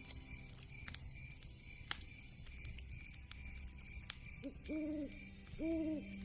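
Wood fire crackling with scattered sharp pops, and about two-thirds of the way in an owl hooting: a short call then two steady hoots of about half a second each.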